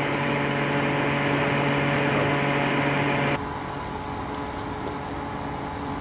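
Cheap fan-forced electric space heater overdriven on double voltage (240 V, about 22 A), its fan motor and element giving a steady electrical hum. About three and a half seconds in, the strong low hum cuts off abruptly, leaving a quieter whir with more hiss.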